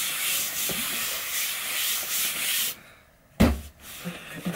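A hand rubbing across the face of a large cardboard box, a steady scratchy brushing that stops about three seconds in. About half a second later comes a single dull thump against the box.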